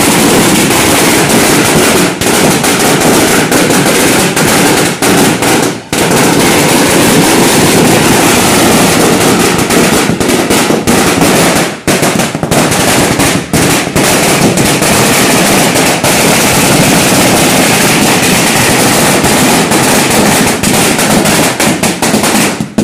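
Firecrackers going off in a long, loud, dense run of rapid bangs, with brief breaks about two, six and twelve seconds in.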